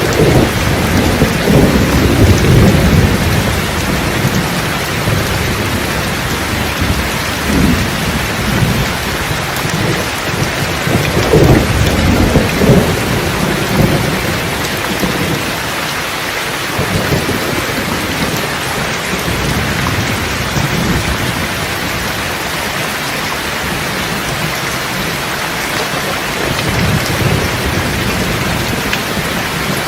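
Steady heavy rain with rolling thunder, the thunder rumbling through roughly the first half and again briefly near the end.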